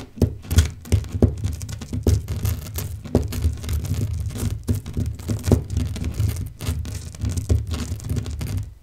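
Irregular knocking and rustling: many small sharp hits, a few to several a second, over a low rumble, cutting off suddenly at the end.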